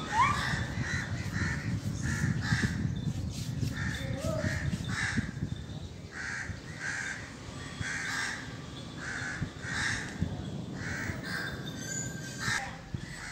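Crows cawing repeatedly, short harsh calls coming one or two a second.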